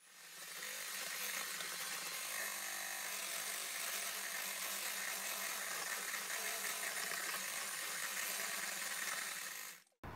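Handheld electric mixer running steadily, its beaters whisking eggs, butter and condensed milk in a stainless steel bowl. It comes up to speed in the first second and is switched off shortly before the end.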